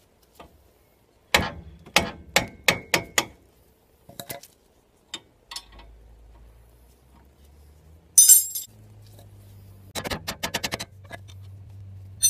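Metal clinks of a wrench working the front brake caliper slide bolts: a run of about six sharp clinks a second or so in, a brief loud rasp about eight seconds in, then a quick rattle of rapid clicks near the end.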